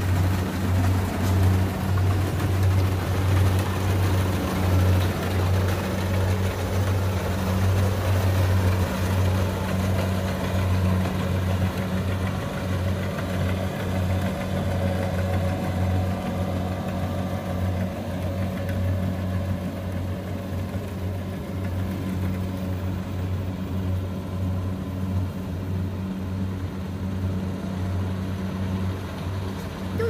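Kubota DC60 combine harvester's diesel engine running steadily as it cuts rice, a low steady drone that grows slightly fainter as the machine moves away.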